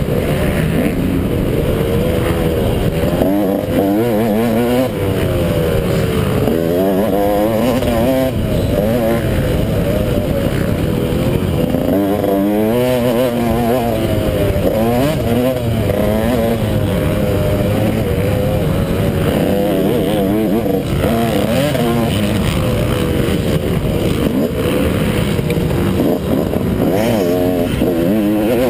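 A 250-class motocross bike's engine heard from on the bike while racing, revving up and falling back again and again as the rider opens and closes the throttle and shifts through jumps and turns.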